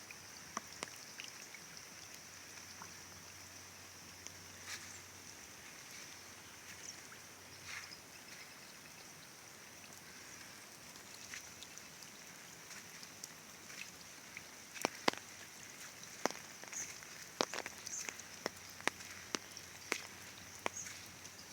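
Rain dripping: scattered drops striking surfaces with sharp ticks, growing more frequent in the second half, over a steady high-pitched hiss.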